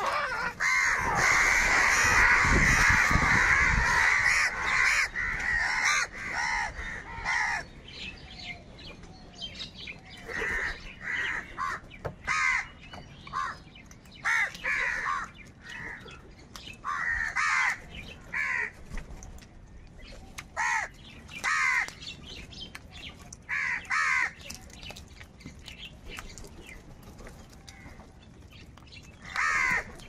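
A flock of house crows cawing: a loud chorus of many overlapping caws for the first seven seconds or so, then separate short caws, singly or in quick twos and threes, every second or two, thinning out, with one last group near the end.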